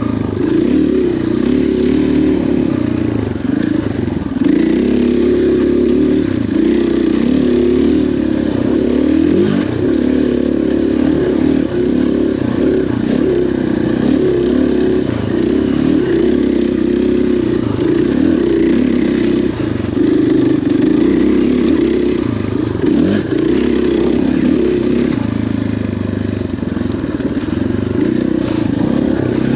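KTM 500 XCF-W dirt bike's single-cylinder four-stroke engine running while ridden off-road, its pitch rising and falling as the throttle opens and closes. A few knocks and rattles sound over it.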